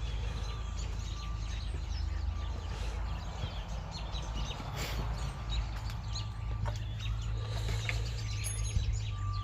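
Birds chirping in short repeated calls over a steady low rumble.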